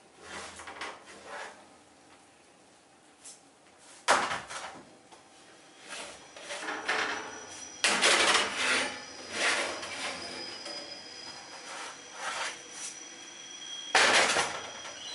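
Metal baking trays sliding in and out over the wire racks of an oven, scraping and clanking, with sharp knocks about four, eight and fourteen seconds in as trays are set down against the racks.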